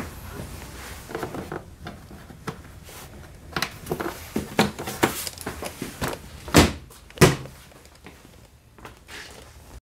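Hard plastic of a Honda PCX 125 scooter's under-seat storage box being handled by hand: a run of light knocks and rattles, with two loud thunks close together past the middle.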